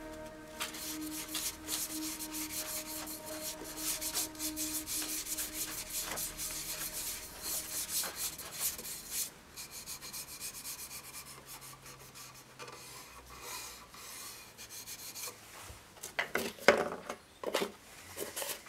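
Cloth rubbing Yorkshire Grit abrasive paste into the inside of a cherry bowl on a wood lathe: a dense, scratchy rubbing that eases off after about nine seconds. A few sharp knocks near the end.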